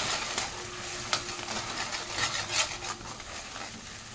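Ground masala paste sizzling in oil in a hammered metal kadai while a metal spoon stirs it, with scattered clicks and scrapes of the spoon against the pan. The masala is being fried (bhuna) in the oil.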